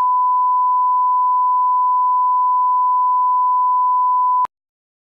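Broadcast test tone played over colour bars: a single steady, pure 1 kHz line-up beep that cuts off suddenly near the end.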